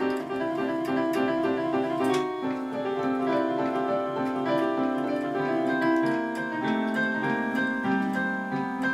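Electronic keyboard being played with a piano sound: quick repeated notes for the first couple of seconds, then slower, held notes and chords.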